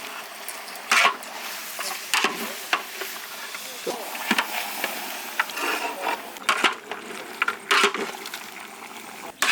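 A metal ladle scraping and knocking against a large cooking pot as chicken pieces are stirred into fried spice paste. There are irregular clanks every second or two over a steady hiss.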